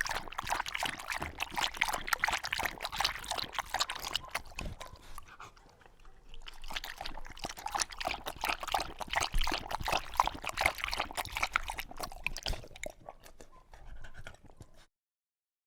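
A dog lapping water, with a rapid run of wet laps in two long bouts split by a short pause about six seconds in, fading out shortly before the end.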